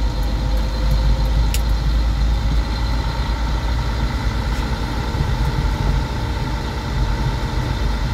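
Semi-truck's diesel engine running steadily at low speed, heard from inside the cab as a continuous low drone. A single brief click sounds about a second and a half in.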